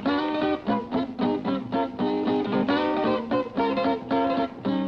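Archtop guitar playing a solo instrumental break of plucked chords and notes, with the narrow, dull tone of an old film soundtrack.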